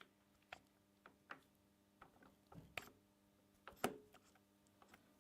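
Faint, irregular metallic clicks and knocks from shifting the gear-change levers on a Schaublin 102VM lathe's open headstock, the gears sliding into mesh; the two loudest come about three and four seconds in.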